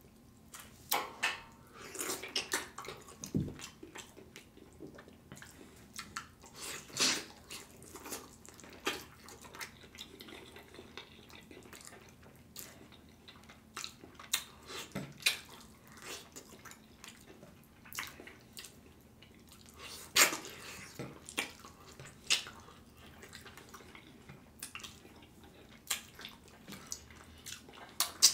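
Close-miked wet mouth sounds of eating saucy oxtails off the bone by hand: irregular smacks, clicks and chewing, some sharper and louder than others.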